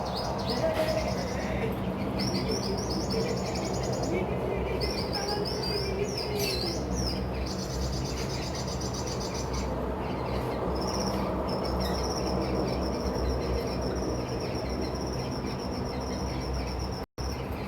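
Hummingbird calling: clusters of short, high, squeaky chips, then a steady thin high whine through the second half, over a constant low rumble. The sound cuts out briefly near the end.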